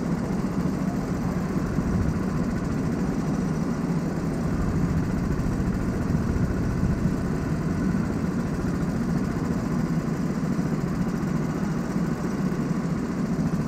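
Go-kart engines running steadily at low speed, heard from the driver's seat with other karts close ahead.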